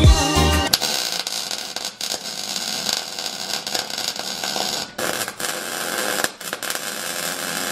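Wire-feed (MIG) welder arc crackling steadily as seat-mount bolts are tack-welded to the steel floor pan, with short breaks between welds about two, five and six and a half seconds in.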